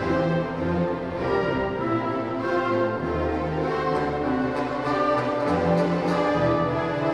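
Orchestral background music: long held notes over a low bass line that changes note every second or two.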